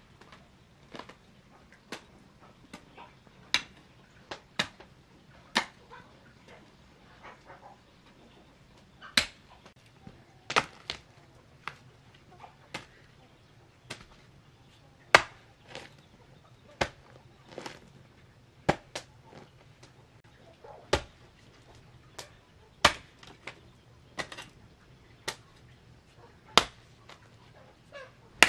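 Hoe blade chopping into soil, a sharp strike about every second at an uneven pace, some much louder than others.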